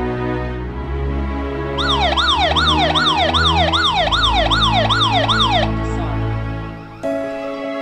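Motion-triggered alarm on a wireless security alarm panel: its siren wails rapidly up and down, about three sweeps a second, starting about two seconds in and cutting off about a second before the end once the system is disarmed with the key-fob remote. Background music plays underneath.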